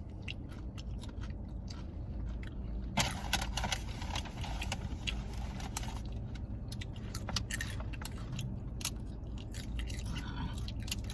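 Chewing and crunching of tortilla chips close to the microphone, with a dense crunchy stretch about three seconds in, over the steady low hum of a car's air conditioning running on low.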